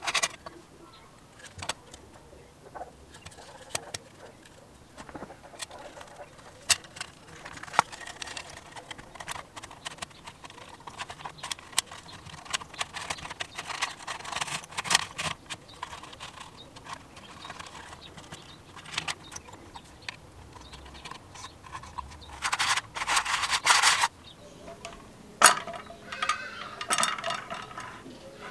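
Parts of a Briggs & Stratton recoil starter being handled and assembled: the coiled steel recoil spring and the pulley click, tap and scrape against the red metal housing. A louder scraping stretch of about a second and a half comes two-thirds of the way in.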